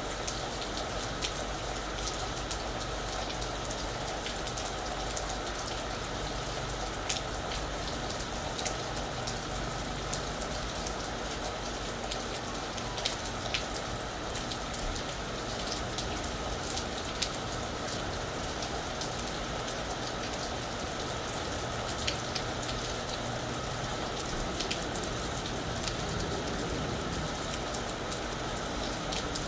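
Steady rain falling on a roof, an even hiss with many separate drops tapping on the surface.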